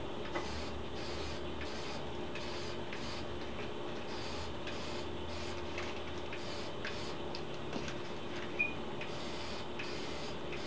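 Dupli-Color HWP103 clear wheel coating aerosol can spraying in short hissing passes, one after another with brief gaps, with a few light clicks. A steady low hum runs underneath.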